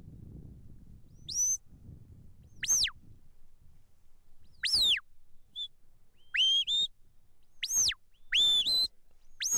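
Sheepdog handler's whistle giving a border collie its commands on the drive: about eight short, sharp whistled notes that sweep up and down in pitch, some joined in two-part phrases.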